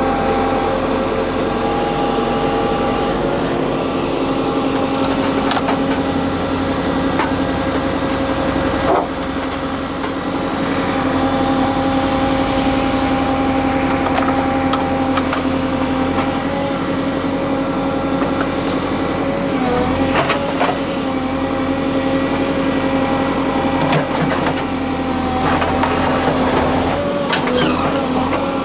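Diesel engine of a JCB 3CX backhoe loader running steadily, with a few sharp knocks and clanks along the way.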